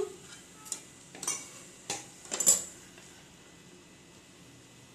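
A spatula scrapes and knocks against a metal kadai as a thick cooked potato mixture is stirred and scooped. There are four or five short strokes in the first two and a half seconds, the loudest near the middle, then one more knock at the very end.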